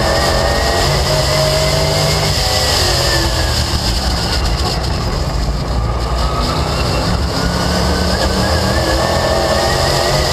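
Late Model stock car's V8 engine at racing speed, heard onboard. The pitch eases off about halfway through as the car lifts through the turn, then climbs again as it goes back on the throttle down the straight, over a steady rush of wind and road noise.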